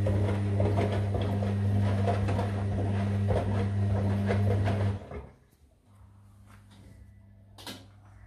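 Sangiorgio S5510I front-loading washing machine tumbling sheets in water, its drum motor humming steadily with the rustle and slosh of the wet load. About five seconds in the motor cuts out and the drum coasts to a stop, leaving a faint hum and a single sharp click near the end.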